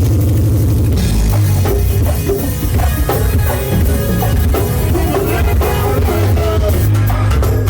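Go-go funk band playing: a heavy, steady bass line under a drum kit and percussion with a busy beat.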